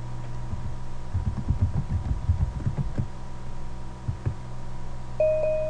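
Computer keyboard typing, heard as a quick run of soft low taps for about two seconds, with a couple more taps a second later, over a steady electrical hum. A short electronic beep sounds near the end.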